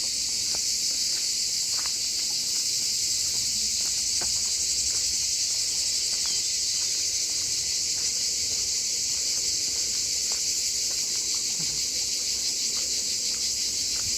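Dense chorus of insects shrilling steadily, a high, even buzz with a fine, fast pulse. Faint soft ticks come and go beneath it.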